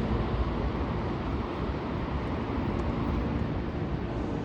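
Steady low rumble of an electric train and the station platform around it, with no clear rise or fall.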